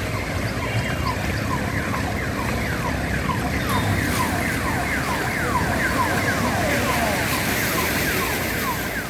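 Street traffic moving through floodwater, a steady rumble and wash, overlaid by a quick, uneven string of short falling chirps repeating two to three times a second.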